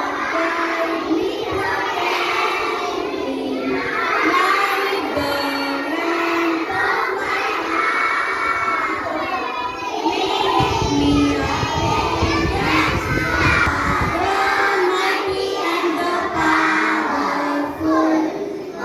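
A group of young children singing together in unison, holding notes that step up and down in a simple tune. A low rumble runs under the singing for a few seconds about halfway through.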